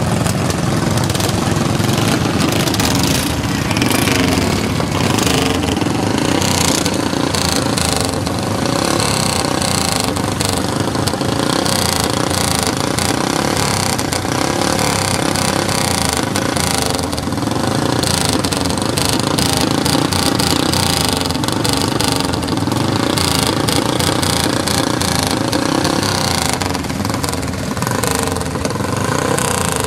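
Several racing lawn mower engines running together at a steady idle on the starting grid.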